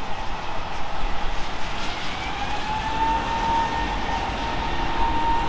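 Jet airliner's engines spooling up: a whine rises over about a second, then holds steady over a constant rush of heavy rain.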